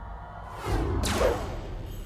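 Cartoon whoosh sound effect that starts about half a second in and sweeps down, over background music.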